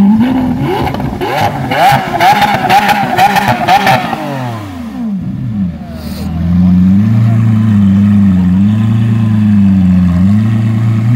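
Lamborghini Aventador's V12 revved hard from idle. The revs are held high and blipped rapidly, with a spatter of exhaust crackles, for about three seconds. The revs then fall away, and after a second or so the engine settles to a steady low-rev note that wavers slightly.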